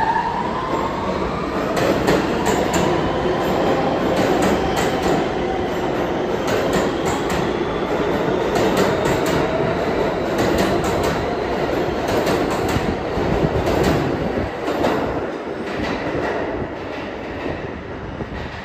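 R160 subway train accelerating out of the station: the traction motors whine, rising in pitch over the first several seconds, while the wheels click over rail joints in a quick, uneven rhythm. The sound eases off near the end as the last car pulls away.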